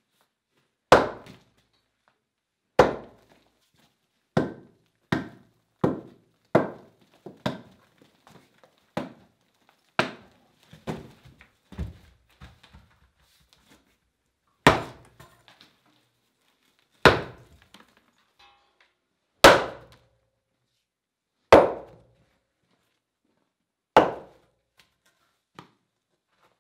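Sledgehammer striking stone, over and over: sharp blows a second or two apart, each with a short echo. A quicker run of lighter blows comes between about four and twelve seconds in, then slower, heavier ones.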